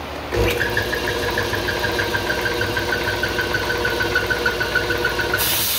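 A Husky air compressor starts up: its capacitor-start electric motor and belt-driven pump run with a loud, rapidly pulsing squeal, the sign of a loose drive belt slipping on the pump pulley. Near the end it shuts off and air hisses out.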